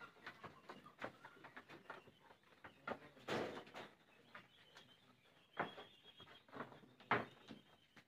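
Sheep moving about in a wooden-railed pen: scattered knocks and clatters against the rails and slatted floor, with a few louder sounds about three, five and a half and seven seconds in.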